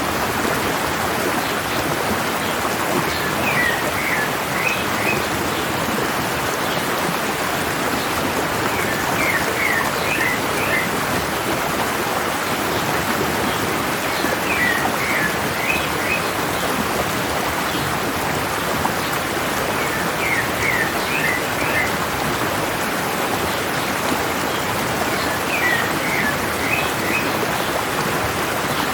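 Stream water running steadily, with a bird singing a short phrase of several quick chirps that repeats about every five to six seconds.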